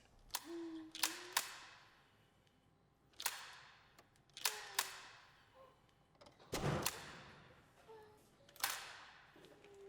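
A slow series of about seven sharp clicks and knocks, irregularly spaced, each with a short ringing tail. Faint brief pitched tones sound between some of them.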